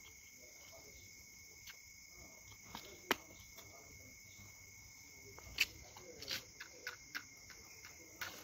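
Faint, steady chirring of crickets, with a handful of short sharp clicks and scrapes from a small matchbox being handled, the loudest about three and five and a half seconds in.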